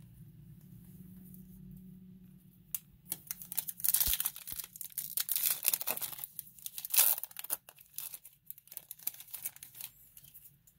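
A foil Topps Chrome trading-card pack being torn open and its wrapper crinkled, a crackling that starts about three seconds in, is loudest in two spells, and thins out near the end.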